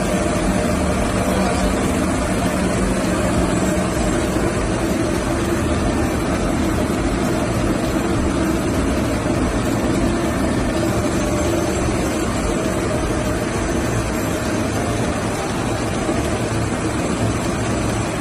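Yarn spinning machinery running steadily: a loud, even mechanical whir with a few constant tones, unchanging throughout.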